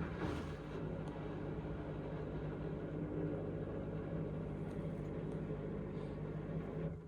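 Indesit washing machine's drain pump running for about seven seconds, a steady hum over rushing, gurgling water as it pumps out mid-cycle; it starts and cuts off suddenly.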